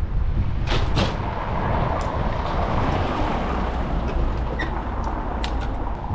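Steady low rumble of road and wind noise while riding an electric scooter in traffic, with two sharp clicks about a second in.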